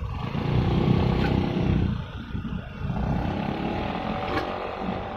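An engine running, its note higher in the second half, over a steady low rumble.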